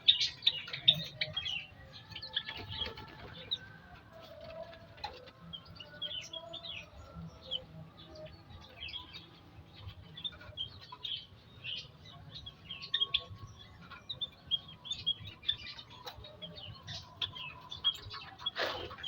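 Aviary birds chirping and tweeting, with many short, high calls overlapping throughout and a few longer held notes beneath them. One louder, sudden sound comes near the end.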